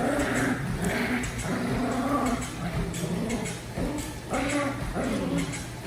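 Dog making drawn-out, wavering vocal noises in repeated phrases while playing tug-of-war: playful vocalizing, not aggression.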